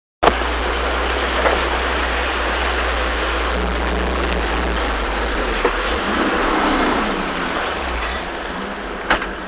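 Off-road 4x4's engine running under way, heard from inside the cab: a steady low rumble under a constant rushing noise from the drive over rough ground. A single sharp knock near the end.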